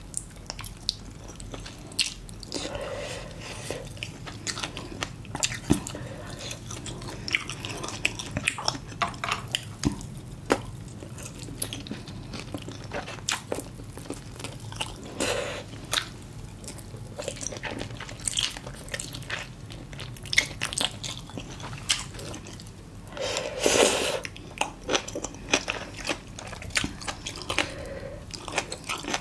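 A person chewing and biting mouthfuls of spicy braised monkfish with bean sprouts: a steady run of small sharp crunches and mouth clicks, with a few louder mouth sounds.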